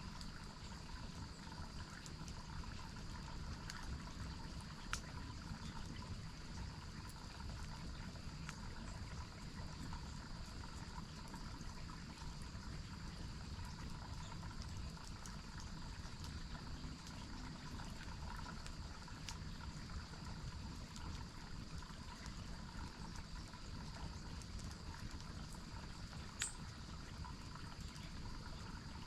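Water from a waterfall stream trickling and running steadily under a continuous high insect drone, with a few sharp clicks, the clearest about five seconds in and near the end.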